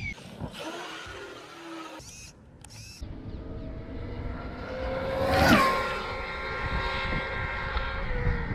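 High-speed RC car's brushless electric motor whining with wind rush on speed runs, in short cuts. About five seconds in the whine swells to its loudest and drops in pitch, then holds as a steady high whine.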